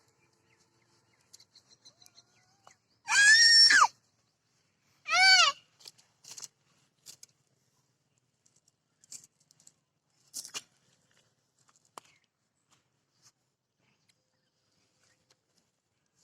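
Two short, loud, high-pitched calls about two seconds apart, each rising then falling in pitch, followed by scattered faint clicks and knocks.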